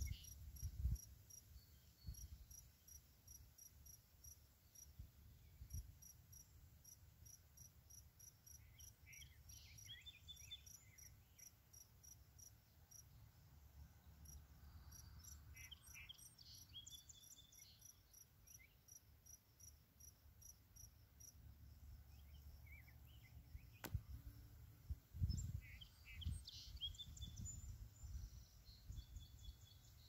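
Faint insect chirping in an even, repeating pulse, with a bird singing short phrases three times and low wind buffeting the microphone, strongest near the end.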